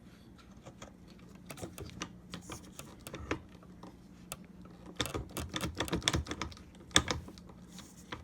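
Irregular light clicks and taps of hardware and parts being handled, sparse at first and busier in the second half, with one sharper click near the end.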